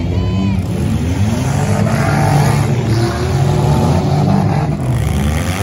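Engines of several small demolition-derby cars running loudly and revving up and down as they push and ram in the mud, the revs climbing about two seconds in.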